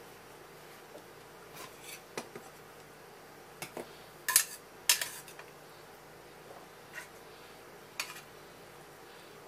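Scattered clinks and knocks of long cooking chopsticks against an aluminium saucepan, the two loudest about half a second apart near the middle.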